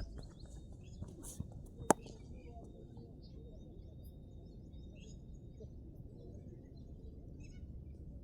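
A single sharp knock about two seconds in, over steady low outdoor noise, with small bird chirps scattered throughout.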